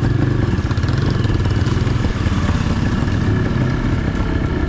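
Sherco X-Ride 290 trail motorcycle's single-cylinder two-stroke engine running steadily.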